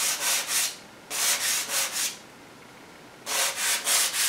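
Sandpaper (320 grit) on a semi-rigid hand sanding block rubbing over hardened two-part polyester glazing putty on a painted car bumper, knocking down the high spots of a filled paint run. Quick back-and-forth scratchy strokes, about four a second, come in three runs with short pauses between them; the longest pause is about a second, in the middle.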